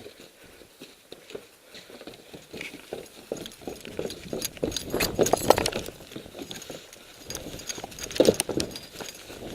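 A run of quick knocks and clattering impacts, building to its loudest about halfway through and flaring again near the end.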